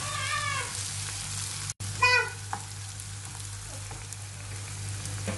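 Sliced onions and peppers sizzling as they fry in a pan, with a cat meowing twice: once at the start and louder about two seconds in.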